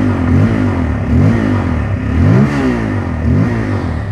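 Bajaj Pulsar N250's single-cylinder engine revved in about five quick throttle blips at its dual-barrel exhaust, each rising and falling in pitch. The biggest comes about two and a half seconds in, and the engine settles back toward idle at the end.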